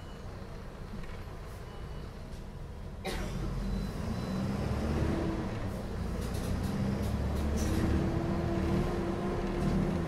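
Diesel engine of a Mercedes-Benz O500M city bus, heard from inside the bus. It runs low and quiet at first. About three seconds in there is a short sharp sound, and the engine gets louder and stays louder, as under load with the bus pulling away.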